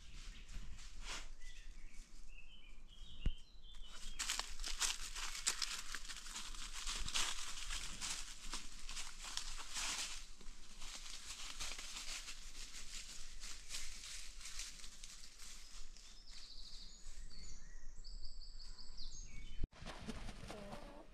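Free-range chickens scratching and pecking through dry forest leaf litter, a dense crackling rustle, with a few short high chirps near the start and again near the end.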